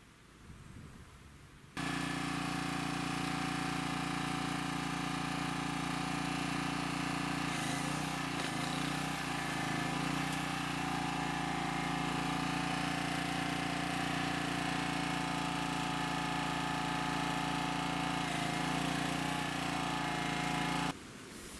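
Power drill running continuously against the wooden crate, starting suddenly about two seconds in and cutting off near the end, its pitch dipping briefly twice as it comes under load.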